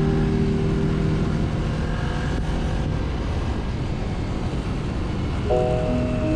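Steady low vehicle noise, with a held chord of background music fading out over the first few seconds and a new song's music coming in near the end.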